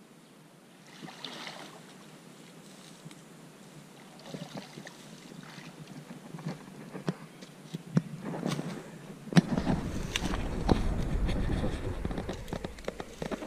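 Magnet-fishing rope hauled in by hand and a long rusty iron bar dragged up out of the river through the bank grass: rustling, scattered clicks and knocks, and water sloshing. The sound builds, with a low rumble through the last few seconds.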